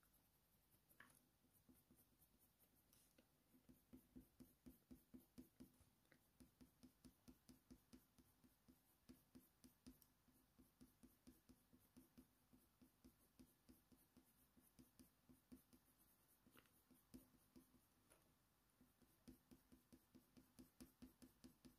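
Faint scratching of a coloured pencil on watercolour paper in short, quick strokes, about three a second, with a pause of a few seconds about two-thirds of the way through.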